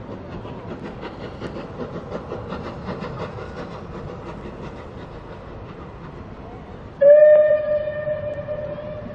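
Steam-hauled passenger train running past with a steady rumble and rapid beats. About seven seconds in, the locomotive gives one loud steam whistle blast on a single pitch, held for about two seconds and fading.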